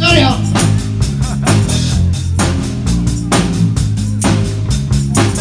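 Live rock band playing: a drum kit keeping a steady beat under bass guitar and other guitar.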